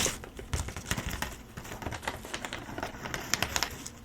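Folding hand fan being handled close up, its ribs clicking and tapping in quick, irregular light clicks.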